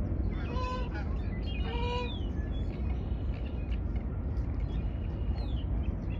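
Birds calling over a steady low rumble: two harsh calls, about half a second and two seconds in, the second ending in a rising sweep, and a thin falling chirp near the end.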